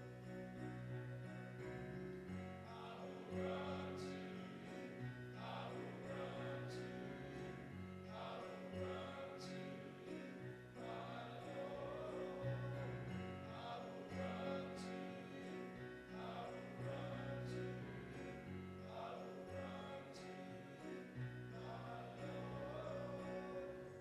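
Slow music with singing over held low notes that change every second or two, with a light high tick every few seconds.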